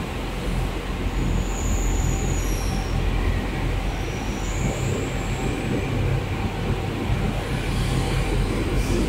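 Steady low electrical hum over a rumbling noise bed, as from mains-powered equipment running. A faint high whine rises and fades twice in the first half.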